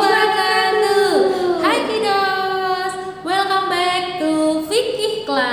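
Women's voices singing a song, with long held notes and short slides in pitch between them.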